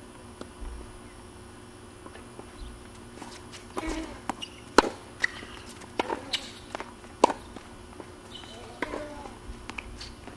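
Tennis rally on an outdoor hard court: a string of sharp pops as the ball is struck by the rackets and bounces, roughly every one to two seconds through the second half, with sneakers scuffing on the court between shots.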